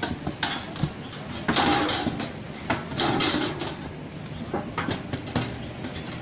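A hatch in a truck's metal floor being lifted open: irregular scraping, knocking and rustling, loudest in a few bursts in the first half.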